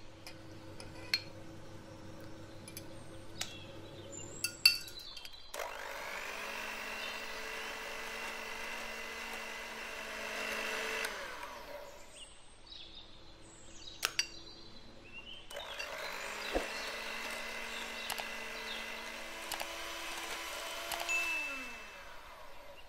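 Electric hand mixer creaming butter and sugar in a glass bowl, running steadily in two stretches of about six seconds each and winding down in pitch as it switches off. Sharp clicks, the beaters knocking against the glass, fall in the quieter gaps before and between.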